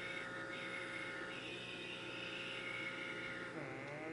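Small electric motor of a handheld blackhead-remover pore vacuum running steadily, a thin whine with several pitches at once. About three and a half seconds in, its pitch briefly sags and climbs back.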